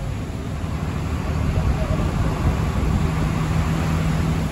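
Hino AK1J bus's diesel engine running at speed, heard from inside the cabin, under a steady wash of road and heavy-rain noise; a steady engine note settles in about three seconds in.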